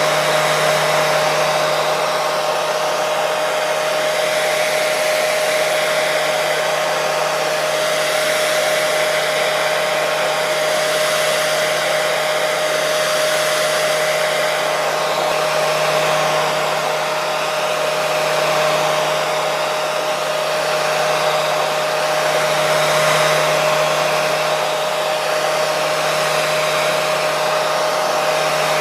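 Electric hair dryer running continuously, with a steady rush of air and a constant motor hum, the level swelling and easing slightly now and then.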